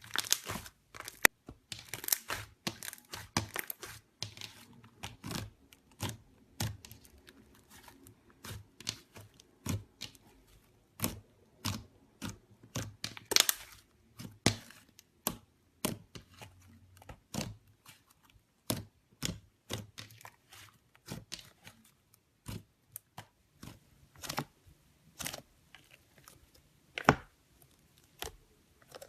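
Slime being handled, giving irregular sharp clicks and crackles a few times a second.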